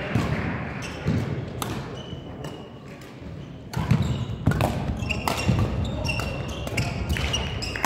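Badminton rackets striking a shuttlecock in rallies, sharp cracks every half second to a second, with court shoes squeaking on the hall floor between them. The hits thin out about two seconds in and pick up again near the four-second mark.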